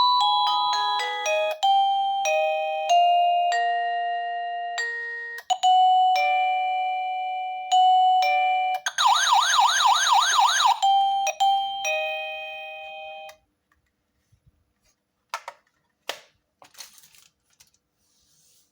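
Lisheng wireless motion-sensor doorbell chime playing its electronic melodies: runs of clean beeping notes, with a warbling siren-like tone for about two seconds in the middle. The tunes stop about two-thirds of the way through, and a few faint clicks follow.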